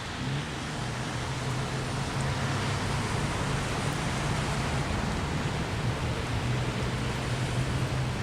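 Steady engine hum under a constant wash of road and traffic noise, with no siren or horn.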